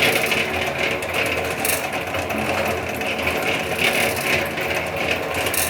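Homemade concrete mixer running steadily, its motor and turning drum giving a continuous mechanical whir with a low hum and a couple of brief knocks.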